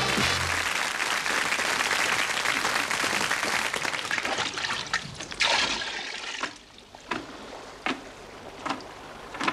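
A steady rushing noise, then water slopping out of a plastic bucket, fading out about six seconds in. A few sharp knocks follow.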